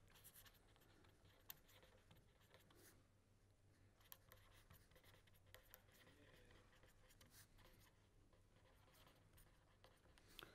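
Very faint scratching of a pen writing on paper, in short strokes over near silence.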